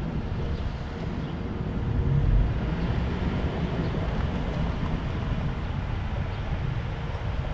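Wind rumbling and buffeting on the camera's microphone outdoors, a low, uneven rumble that swells briefly about two seconds in.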